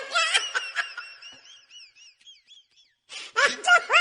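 High-pitched voice sounds fade into a string of short chirping tones that rise and fall, about four a second and growing fainter. After a brief gap, the high-pitched voice returns near the end.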